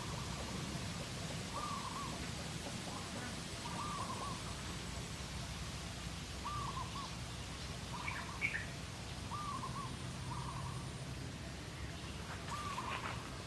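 A bird giving a short hooting call of two or three notes, repeated every couple of seconds. A few brief higher chirps and a single sharp click come about eight seconds in.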